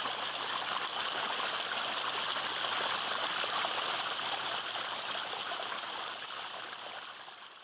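Water of a pondless waterfall and stream running steadily over rocks, fading out near the end.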